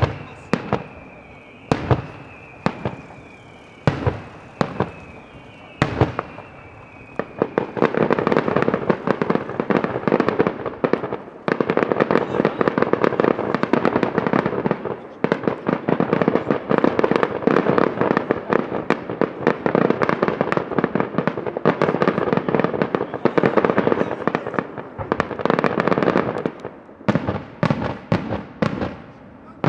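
Daylight fireworks display. First come single loud aerial shell bangs about once a second, each with a high whistle falling slightly in pitch. Then a dense barrage of rapid-fire bangs runs for about twenty seconds before it breaks back into separate bangs near the end.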